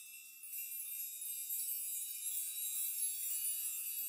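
Sparkle chime sound effect: a high tinkling of chimes that swells about half a second in and goes on glittering.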